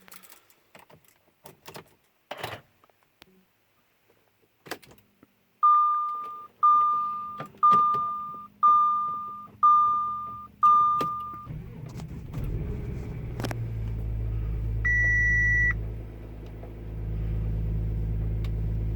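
A few clicks, then six dashboard warning chimes about a second apart. The Audi Q7's 3.0 TDI V6 diesel then starts and settles into a steady idle, with one higher beep a few seconds after it starts.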